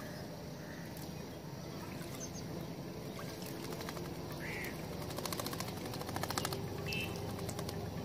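A myna bathing in a shallow bowl of water, with rapid splashing and wing flicks from about three seconds in until past the middle. Two short bird chirps are heard over a steady low background rumble.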